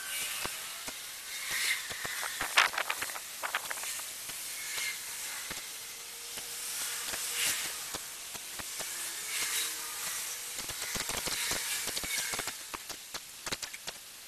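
Water fizzing in a small tank as the dissolving Sera Pond Algokill algae treatment releases streams of bubbles: a steady hiss with quick runs of tiny crackling pops about two to three seconds in and again over the last few seconds.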